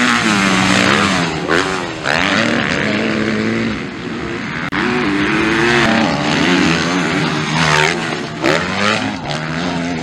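250cc motocross bike engines revving hard, their pitch climbing and dropping again and again as the riders accelerate, shift and back off.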